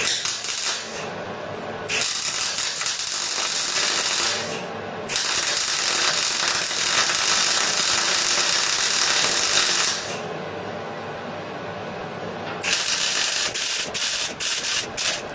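MIG welder arc crackling as steel chassis legs are welded on. A short burst comes first, then runs of about two and five seconds with pauses between, and after about twelve seconds a choppy string of short tack-weld bursts.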